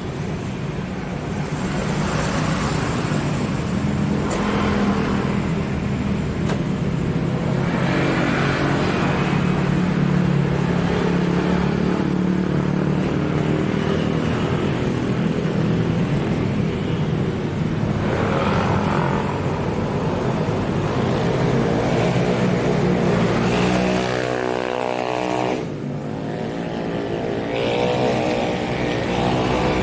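Road traffic, with motor-vehicle engines running steadily close by. Near the end, an engine's pitch rises and falls as a vehicle passes.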